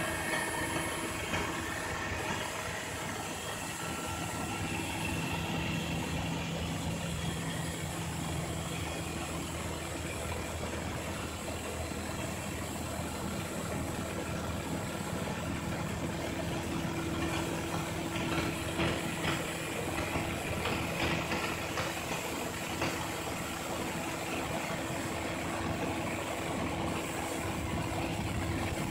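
Large rotary snow blower truck working, its heavy engine running with a steady hum under a dense rushing noise from the blower throwing snow.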